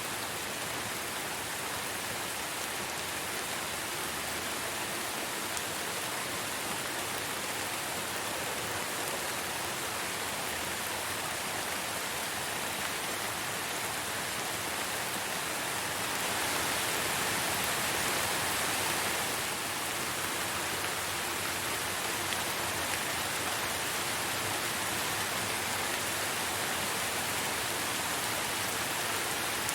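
Steady rain falling, a dense even hiss of many drops, swelling slightly for a few seconds past the middle.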